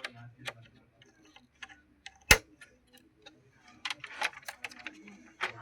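Small clicks and taps of a RAM memory module being handled and fitted into its slot inside an opened all-in-one PC, with one sharp, loud click a little over two seconds in and a quick run of clicks near the end.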